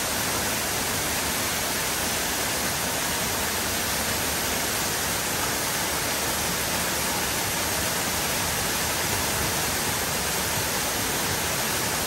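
A tall waterfall running full, its water falling onto rock in a steady, even rush.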